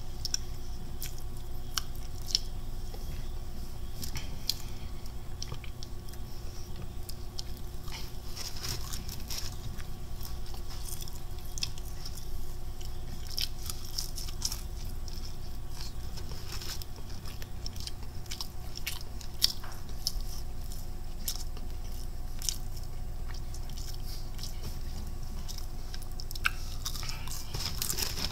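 A person biting and chewing crunchy fried chicken from a Popeyes spicy chicken dinner close to the microphone: irregular crisp crunches and clicks, a few of them sharper, over a steady low hum.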